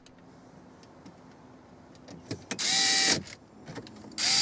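Cordless drill-driver driving the Phillips screws that hold a car radio into the dash: two short runs of motor whine, each about half a second, about a second and a half apart, with a few light clicks between them.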